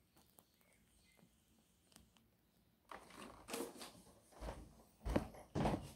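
Handling noise from a phone camera being positioned: a near-quiet start with faint ticks, then from about halfway, rustling and a few dull bumps.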